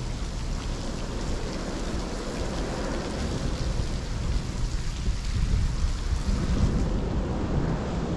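Heavy rain falling steadily, with scattered drip ticks over a continuous low rumble.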